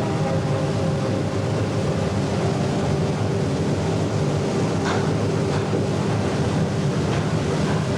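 Steady rumbling noise with a faint held tone, and a few faint clicks in the second half.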